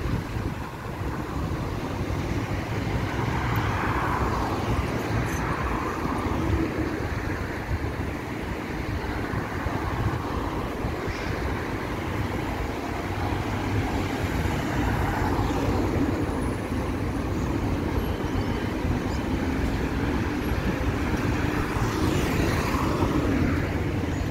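Road traffic on a city boulevard: a steady hum of engines and tyres, with several cars passing close by in slow swells of sound.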